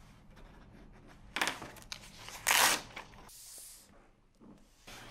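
A paper check being torn out of a checkbook in two short rips about a second apart, the second louder. Then a brief high paper hiss as the loose check is pushed along the tabletop.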